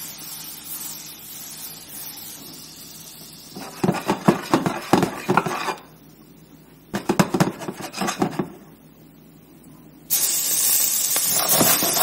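Clattering knocks of a pan and utensils. About ten seconds in, a sudden, steady sizzle starts as blanched cicada nymphs hit hot olive oil and butter in a frying pan.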